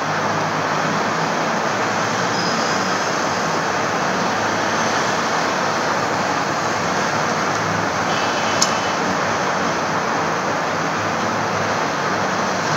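Steady rushing background noise with a faint low hum, unchanging throughout, and a single short click about eight and a half seconds in.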